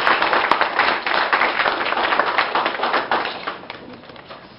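A small audience applauding. The clapping dies away about three and a half seconds in.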